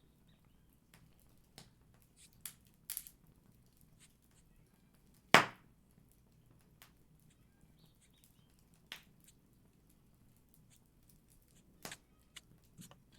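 A home fire popping: scattered, irregular sharp pops over a quiet room, the loudest about five seconds in.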